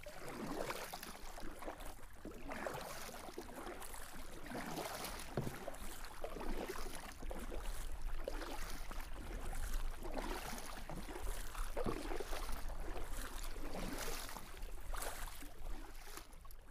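Kayak paddle strokes in calm water, with a soft splash and drip from the blades every second or two.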